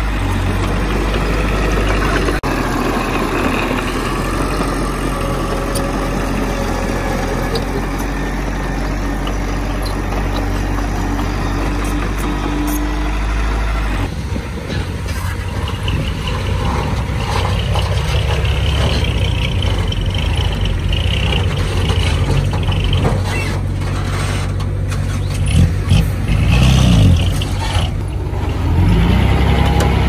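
Heavy diesel engines of earthmoving machinery running steadily. The sound changes abruptly about halfway through, and near the end an engine revs up and down a few times.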